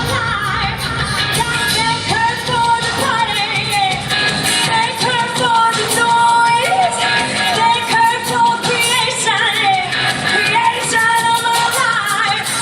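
Loud pop song with singing, played over a runway show's sound system.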